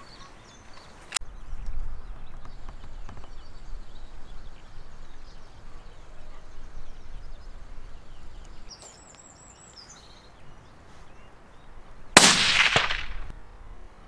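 A single .223 Remington rifle shot near the end, with a tail of about a second. Before it, a sharp crack about a second in, wind rumbling on the microphone and a brief run of high bird chirps.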